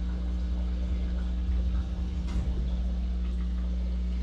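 Steady low hum of aquarium aeration equipment, with the bubbling of an air stone and air-driven sponge filter; one sharp click a little over halfway through.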